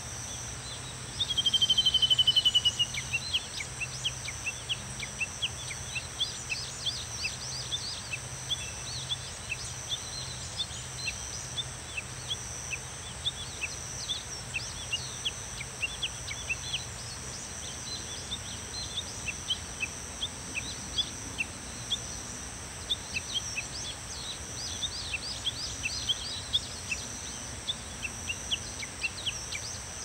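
Cicadas and other insects droning steadily at a high pitch. About a second in, one close cicada gives a fast pulsing call that falls in pitch for about a second and a half; it is the loudest sound. Short high bird chirps come and go throughout.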